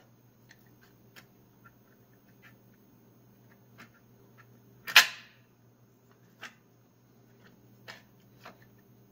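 The steel band of a 4L60E transmission being worked into the case around the input drum: scattered light metallic clicks, and one sharp clank about five seconds in, over a faint steady hum.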